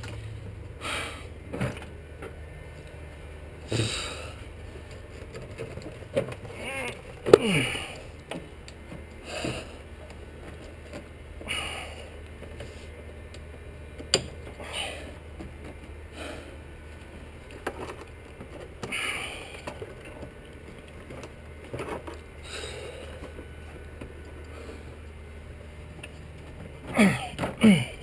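Intermittent knocks, scrapes and rubbing as a cold-air intake tube and its rubber coupler are forced into place by hand, with a few short strained grunts. A low steady hum runs underneath.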